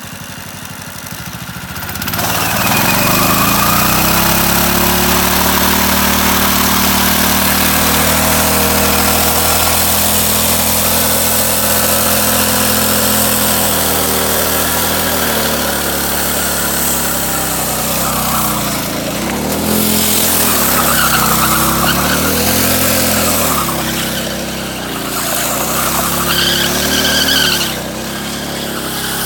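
A motor engine comes in loud about two seconds in and runs with a steady pitch, then its pitch rises and falls again and again as it is revved.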